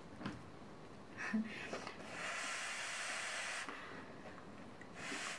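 Breath blown out in a long airy puff about two seconds in and a short one near the end, cooling a still-hot piece of seaweed-wrapped sushi bake.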